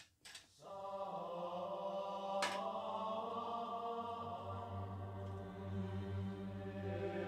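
Background music of choir-like chanting on held notes, starting about half a second in after a couple of short clicks. One sharp click sounds about two and a half seconds in.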